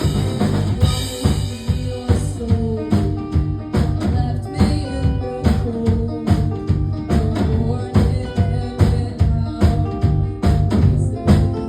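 Live rock band playing: a drum kit keeping a steady beat of kick and snare hits under bass and electric guitar.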